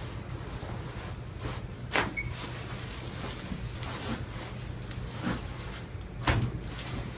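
A few soft knocks and clunks from handling during a chiropractic treatment, the loudest about six seconds in, over a steady low hum.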